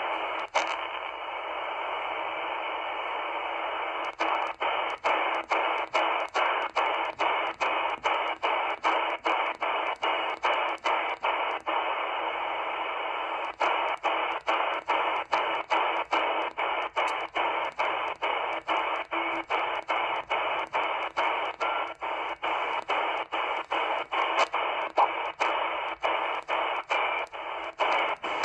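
XHDATA D-808 shortwave receiver in upper-sideband mode giving out steady hiss from its speaker while being tuned step by step. Each tuning step brings a brief dropout with a click, about two a second, with a pause in the stepping near the start and another around the middle.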